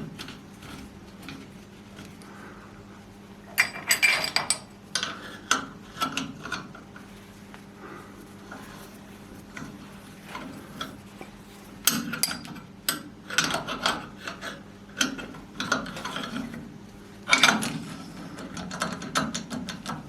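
Metal parts of a pulley-wheel assembly clicking and rattling as they are handled and checked on their shaft, in several short spells of clatter.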